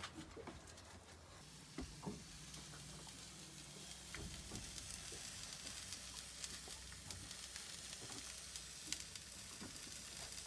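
Hot dogs frying in a pan on a galley stove, a faint steady sizzle with fine crackling. A few light knocks come about two seconds in.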